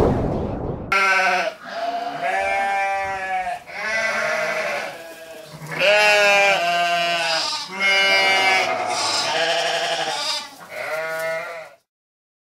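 A loud burst of noise right at the start, then an animal bleating: about seven wavering calls, each around a second long, stopping shortly before the end.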